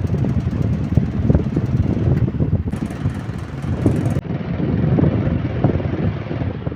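Electric table fan running with a loud, irregular rattling and knocking, the noise of a worn or loose motor shaft.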